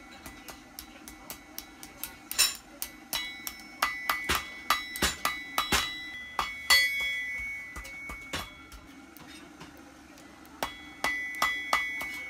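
Blacksmith's hand hammer striking a red-hot iron bar on an anvil: a run of sharp blows with a bright metallic ring. The strikes break off for about two seconds after the middle, then resume.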